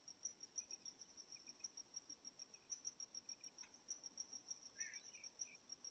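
Cricket chirping in a steady, rapid pulse, about six chirps a second, faint.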